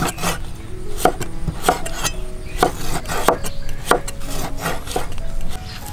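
Cleavers chopping on a thick wooden chopping block, cutting raw pork and green vegetables. The blades land in sharp knocks about twice a second, with some scraping between them.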